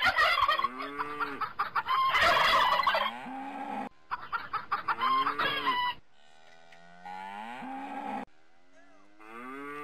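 Farm-animal calls, mainly chickens clucking, with a repeated series of low calls that rise and fall in pitch. The sound cuts off abruptly a few times and is quieter after about six seconds.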